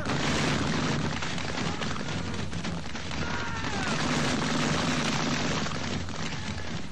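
Massed volley of muskets fired by a line of infantry: a dense crackle that starts at once and keeps rolling for about six and a half seconds, fading near the end.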